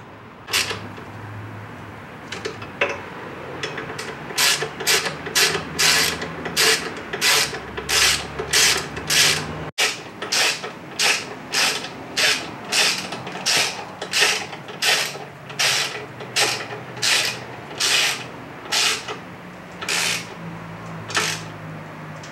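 Hand ratchet being worked in short, repeated strokes, each a quick run of pawl clicks, about two strokes a second, while fasteners are driven home during reassembly of the motorcycle.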